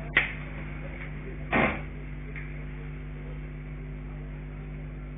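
Steady electrical hum, broken by a sharp click just after the start and a short burst of noise about a second and a half in.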